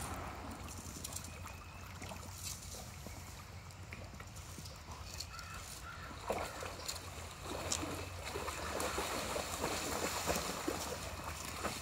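Two Leonberger dogs wading and splashing in a shallow stream over the low rush of the water; the splashing gets busier and louder from about six seconds in.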